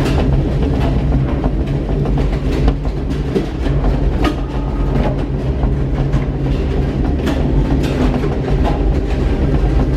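Gateway Arch tram capsule riding up its track inside the arch: a steady low rumble with irregular clicks and clanks.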